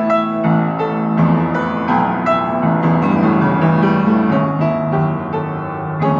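Piano improvisation: single notes and chords struck about two or three times a second, each ringing on under the next.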